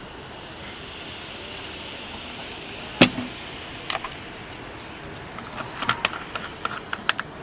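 A sharp knock about three seconds in, then a run of light clicks and taps near the end, over a faint steady insect drone that fades about halfway through.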